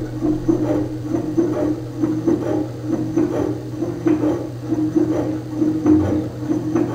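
Servo motors and toothed belts of a flying saw motion-control demo rig running: a steady hum with a whir that pulses about twice a second as the axes cycle.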